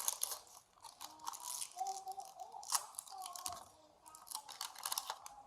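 Plastic packaging of a toy egg crackling and crinkling in the hands as it is opened, in quick irregular crackles with short pauses.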